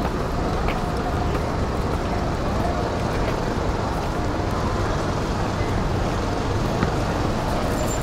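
Busy city street ambience: a steady low rumble of road traffic, with passersby's voices mixed in.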